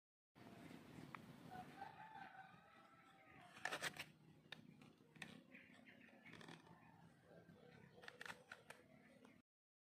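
Faint outdoor quiet with a distant rooster crowing once, a curving call of about two seconds near the start. A few soft clicks and rustles come through, the loudest around four seconds in, and the sound cuts off just before the end.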